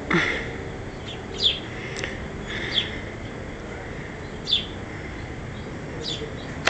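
Small birds chirping: short, high, downward-sliding chirps every second or two, over a steady background hiss, with one louder sound right at the start.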